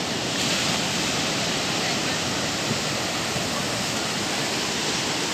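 Bay of Bengal surf breaking on the beach: a steady, unbroken rush of waves from a sea stirred up ahead of Cyclone Bulbul.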